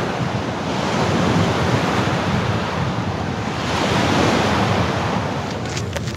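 Small waves washing onto a rocky shore, swelling and easing twice, with wind buffeting the microphone. Just before the end, a few footsteps crunch on a gravel path.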